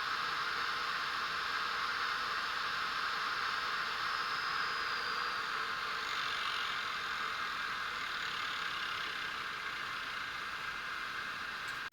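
Steady steam hiss from the sound decoder's small speaker in a Fleischmann BR52 N-scale steam locomotive model, easing slightly in the second half.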